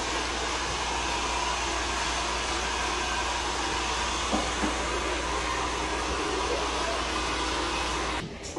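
A hair dryer running steadily, a constant whooshing blower noise with a low hum beneath it, cutting off abruptly near the end.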